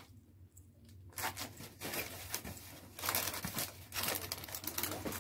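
Cellophane wrapping crinkling and a cardboard gift box being handled and opened: rustling and crackling of packaging that starts about a second in.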